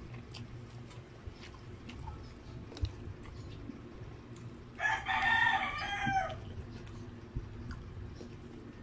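A rooster crows once in the background about five seconds in, a single call of about a second and a half. Faint clicks of eating with the fingers come before and after it.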